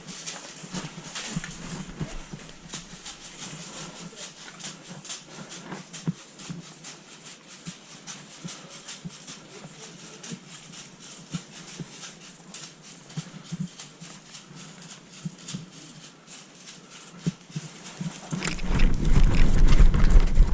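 Footsteps crunching on woodland ground: irregular light clicks and crackles throughout. About eighteen seconds in, a loud low rumble starts, like wind or handling noise on the microphone.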